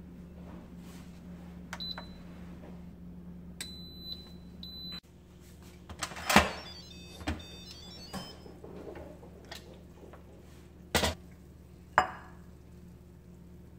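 Two short electronic beeps from an Instant Pot electric pressure cooker's control panel over a steady low hum. Then clunks and knocks: a loud one about six seconds in as the lid is handled, and two near the end as a ceramic bowl is set down on a granite countertop.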